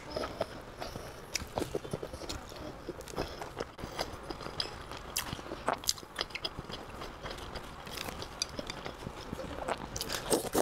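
Close-miked mouth sounds of a person chewing food, with many small irregular clicks and smacks. Near the end comes a louder bite into a piece of okra.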